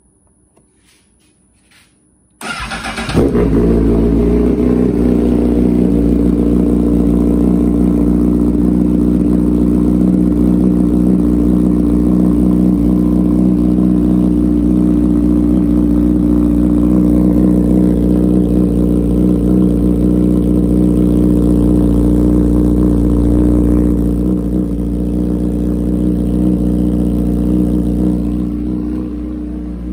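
Honda CBR1000RR's inline-four started from cold, catching about two and a half seconds in and settling into a loud, steady fast cold idle through an SC Project CRT slip-on muffler. Near the end the idle eases down and quiets a little as it warms.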